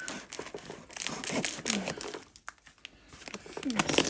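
Packaging being handled and unwrapped by hand: irregular crinkling and rustling, with a brief lull about halfway through.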